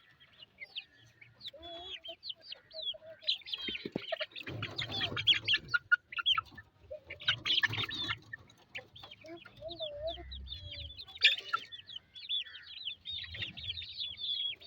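Chickens clucking, with many short, high chirps from birds running through.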